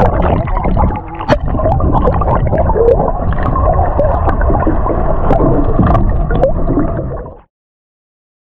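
Water rushing and gurgling, heard underwater, as a fish is released beside a boat hull, with a few sharp clicks. It cuts off suddenly near the end.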